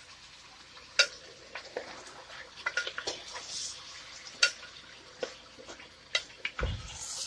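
Mutton pieces sizzling in hot oil in a deep pot while a spoon stirs them, knocking and scraping against the pot several times; the meat is being browned (bhuna) in the oil. A short low thump near the end.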